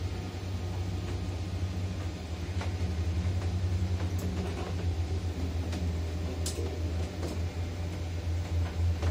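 Steady low machine hum and rumble heard from the cab of a tower crane, with a few faint clicks.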